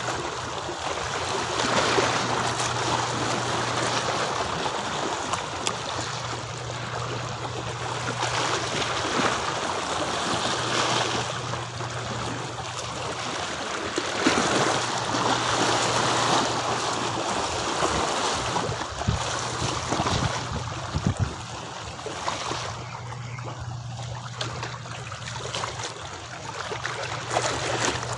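Seawater sloshing and lapping against a pier, a rushing noise that swells and eases, with a low steady hum underneath for much of the time and a few light knocks about two-thirds of the way through.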